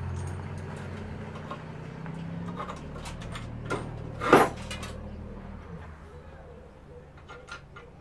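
Pallet-wood pieces being handled and fitted together during a dry fit: scattered light wooden clicks and one sharp, loud knock about four seconds in. A low hum runs underneath.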